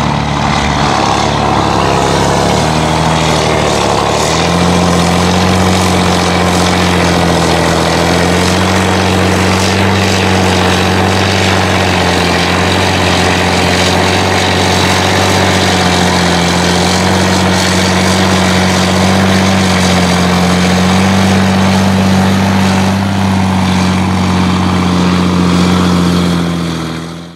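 John Deere 7920's six-cylinder diesel with an open, unmuffled exhaust stack, working under load while pulling a laser land leveler through dirt. Its note climbs in a few steps over the first few seconds, then holds a steady pitch, and fades out at the very end.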